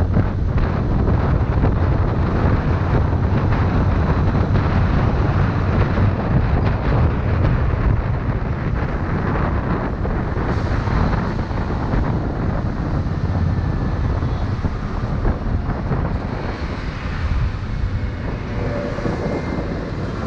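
Wind rushing over the microphone of a moving motorcycle, mixed with its engine and tyre noise. The Scania coach is running close alongside. The sound eases a little near the end as the bike slows.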